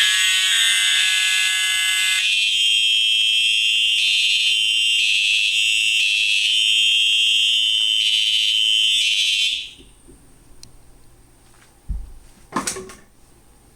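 EST and Siemens fire alarm devices sounding together in a loud, pulsing pattern; one of the tones drops out about two seconds in, and the rest cut off suddenly about nine and a half seconds in. A thump and a knock follow near the end.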